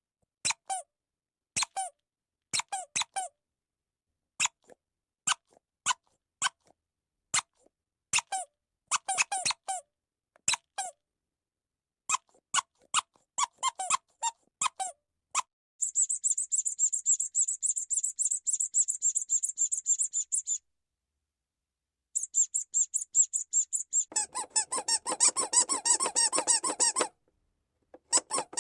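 Squeak sound effect played over and over. At first it comes as separate short high squeaks, singly or in small clusters. Then it plays in two fast, dense runs of rapid squeaks with a short pause between them, the second run layered and fuller.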